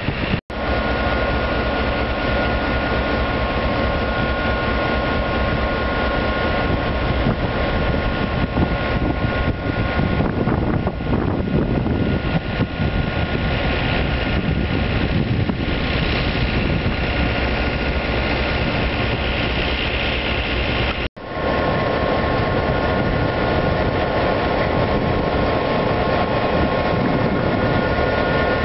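Diesel-electric locomotive idling: a steady engine rumble with a high, steady whine on top. The sound cuts out for an instant near the start and again about 21 seconds in, and is steadier and closer after the second cut.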